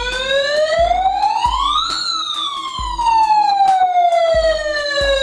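Toy RC fire truck's built-in electronic siren wailing through its small speaker, very loud: the pitch climbs for about two seconds, then slides slowly back down.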